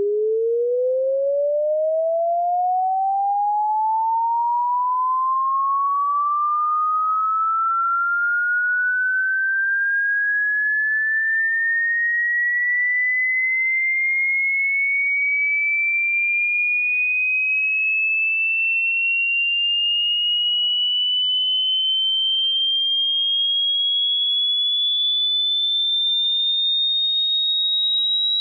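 A synthesized pure sine tone sweeping slowly and smoothly upward in pitch, from a mid-low tone to a high, shrill whistle, at a constant loudness.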